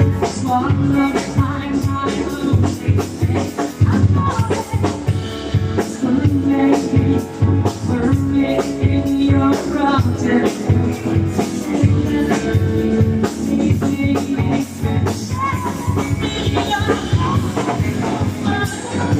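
A band playing rock and roll music with a steady drum beat and a singer.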